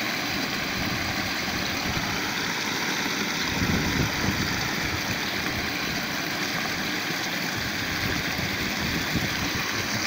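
Muddy water pouring over a low grassy bank into a frothing pool: a steady rushing splash with a low rumble underneath.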